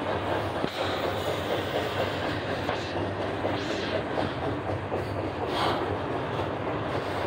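Doublestack intermodal freight train passing, its loaded container well cars rolling steadily on steel rail.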